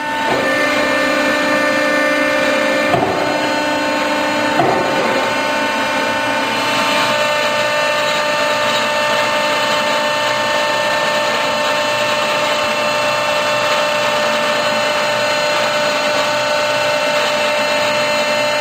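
Accurpress 175-ton CNC hydraulic press brake running, its hydraulic pump motor giving a steady whine with several held tones. Two short knocks come about three and about four and a half seconds in.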